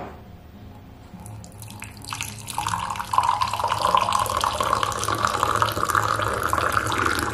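Liquid poured from above into a drinking glass, splashing steadily as the glass fills, starting about two seconds in.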